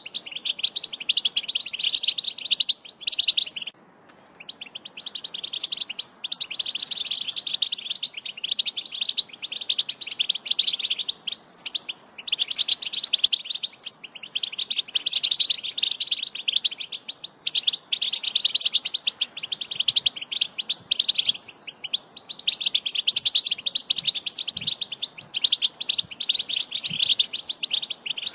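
European goldfinch song: fast, unbroken twittering and trills in long phrases, each broken off by a brief pause.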